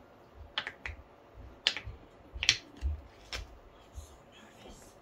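Hand tool scraping and shaving the sides of a solid clay block being carved into a kurinuki box: a handful of short, sharp, irregularly spaced scrapes, with soft low knocks of the clay and banding wheel between them.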